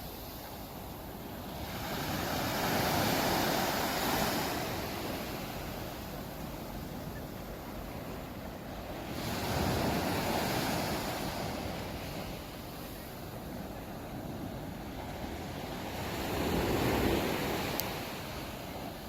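Sea waves breaking on a beach: three waves surge in, one about every seven seconds, with a steady wash of surf between them.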